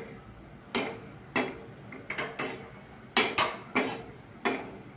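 A perforated steel spoon knocks and scrapes against a steel kadhai while stirring grated dried coconut as it dry-roasts. About nine sharp metallic clinks come at an uneven pace.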